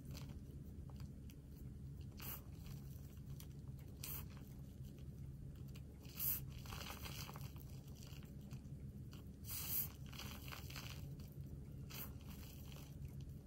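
Crumbly gym chalk and cornstarch powder squeezed and crushed in bare hands: short soft crunches every couple of seconds over a steady low hum.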